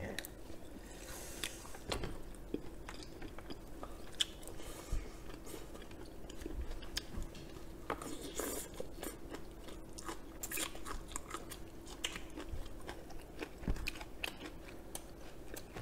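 Close-miked chewing and biting of crispy fried chicken and shredded green onion, with irregular crunches and mouth clicks scattered throughout. A faint steady hum sits underneath.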